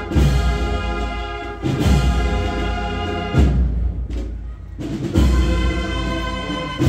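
Brass band playing a slow processional march: held brass chords over a deep drum beat about every second and a half to two seconds.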